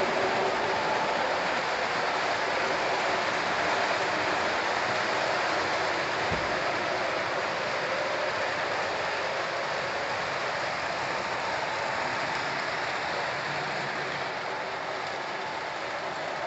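O-gauge Lionel box cars rolling past on model railroad track, a steady rushing clatter of metal wheels on the rails that eases slightly toward the end.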